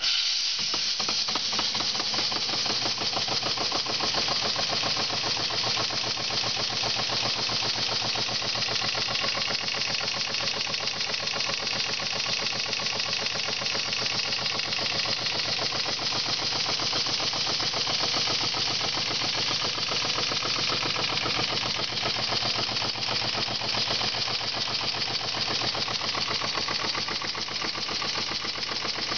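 Small model steam engine running on wet steam, its exhaust chuffing fast and evenly over a steady hiss of escaping steam. The sound starts abruptly.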